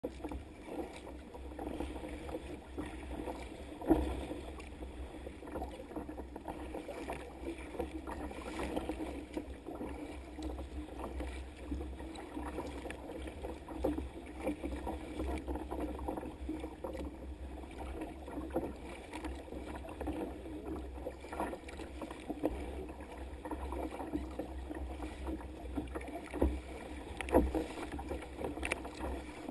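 Sea kayak hull moving through choppy water: steady, muffled splashing and slapping of small waves against the hull over a low rumble, with a few sharper knocks, the loudest about four seconds in and again a couple of seconds before the end.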